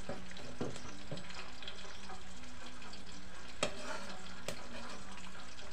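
Small fish sizzling as they fry in a metal wok, with a metal spatula scraping and clinking against the pan a few times as they are turned.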